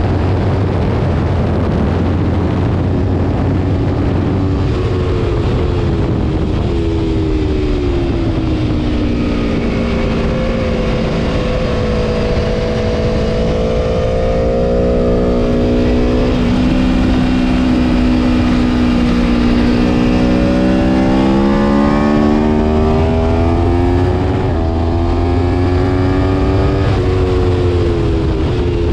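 Aprilia Tuono V4 Factory's V4 engine running hard under racing load. The revs sink slowly, hold lower for several seconds, then climb again, with a sudden drop near the end.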